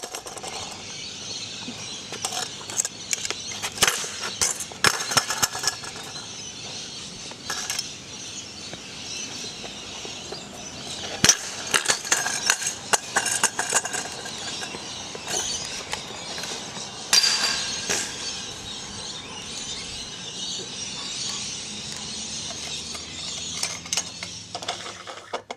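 A stunt scooter clattering and banging on concrete: many sharp metallic impacts and rattling clinks at uneven intervals, the loudest about 11 and 17 seconds in, over a steady hiss.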